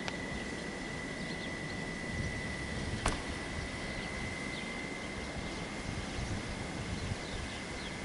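Freight train's wagons rolling slowly away on the rails: a steady wash of wheel noise with a thin high whine held throughout and one sharp click about three seconds in.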